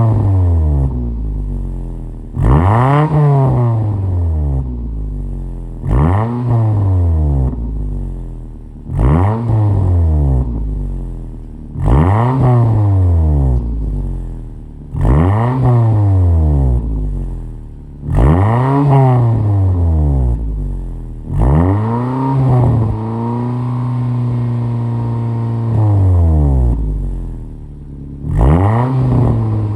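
Car exhaust through an A'PEXi N1 muffler whose active tail silencer is fitted with a softer 1.6 mm spring and 2.38 mm ball, as the engine is blipped from idle roughly every three seconds. Each rev rises sharply and falls back. One rev in the second half is held steady for about four seconds before dropping.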